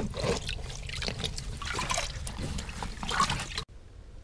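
Water splashing and trickling in an ice-fishing hole as a hand reaches into it, with small knocks mixed in. It stops abruptly near the end, leaving quiet room tone.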